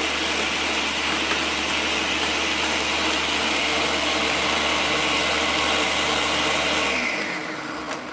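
Ninja countertop blender running steadily, blending a margarita with ice. About seven seconds in the motor winds down, falling in pitch as it slows to a stop near the end.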